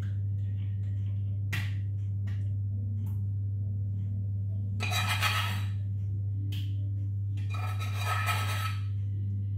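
A spoon scraping thick white sauce out of a small stainless-steel saucepan: a couple of light clinks, then two longer scrapes about five and eight seconds in, over a steady low hum.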